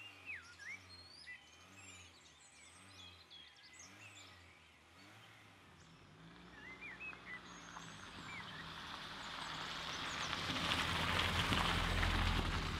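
Birds chirping and whistling, then a Volkswagen Golf Mk2 approaching over a gritty dirt track. Its tyres crunching and its low rumble build steadily from about halfway and are loudest near the end.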